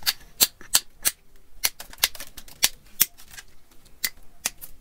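African land snail shells clicking and knocking against one another and the plastic tub as a gloved hand sorts through them: about a dozen sharp, irregular clicks.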